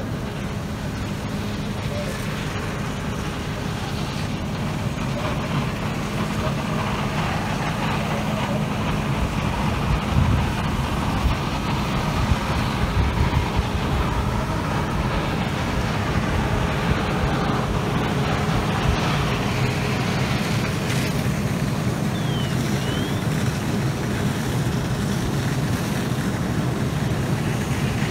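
Fire engine running steadily at pumping speed, feeding the hose streams, with people's voices over it.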